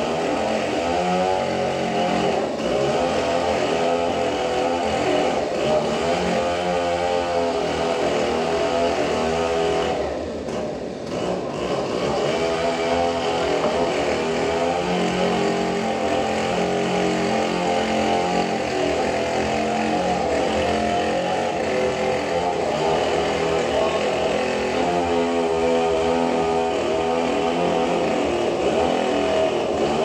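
Bandsaw sawmill running while sawing a large trembesi (rain tree) log; the motor's note wavers up and down with the load, easing off briefly about ten seconds in.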